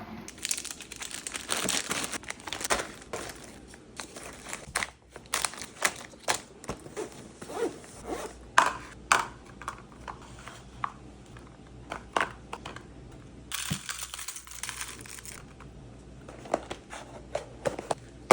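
Plastic snack packaging crinkling and rustling as snacks are packed, in two longer stretches, with many short clicks and knocks in between as items are handled and set down.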